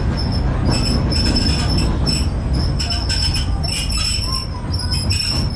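Sydney O class electric tram running slowly on rails, its wheels squealing in a thin high note that comes and goes over a low running rumble, cutting off at the end.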